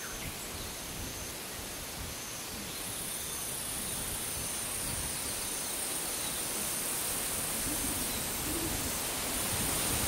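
Outdoor forest ambience by a pond: a steady even hiss with a low rumble under it. About three seconds in, a high steady buzz joins, and faint short high chirps repeat less than a second apart throughout.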